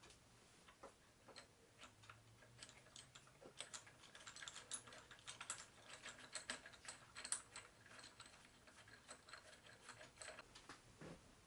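Faint, irregular metallic clicks and ticks as a threaded rod is worked by hand through a turned steel pivot pin. The clicks thicken in the middle and thin out again near the end.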